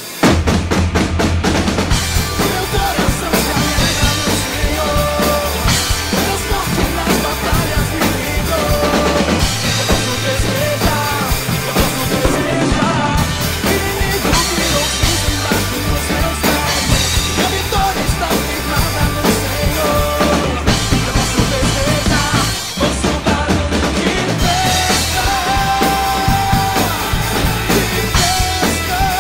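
Acoustic drum kit played in a steady, driving groove of bass drum, snare and cymbals, coming in loud right at the start. A song with held pitched parts runs underneath it as the track being played along to.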